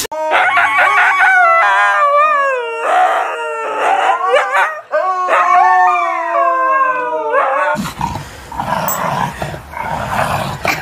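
A dog howling in a series of long, wavering calls that rise and fall in pitch. About three-quarters of the way through it cuts off abruptly, giving way to a loud rushing, rustling noise.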